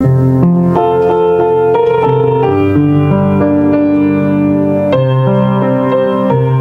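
Piano playing the introduction of a hymn: a melody of notes changing about every half second over sustained bass chords.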